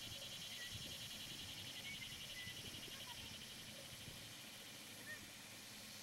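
Faint outdoor ambience: a high, rapidly pulsing chorus of calling animals that fades after about four seconds, with a few short chirps.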